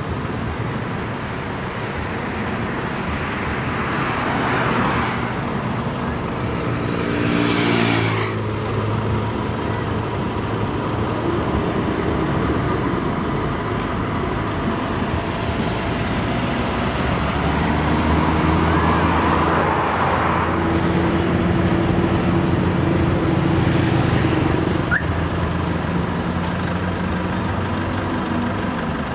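Road traffic passing close by: cars and pickup trucks going past one after another over a steady traffic hiss, with a heavier engine drone lasting several seconds in the second half.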